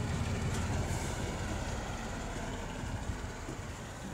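Diesel rail vehicle moving away along the track: a low engine rumble with wheel-on-rail noise, loudest about a second in and slowly fading.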